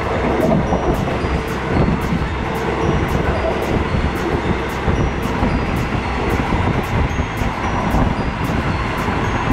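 Steady rumble and rattle of a passenger train carriage running on the rails, heard from inside the carriage.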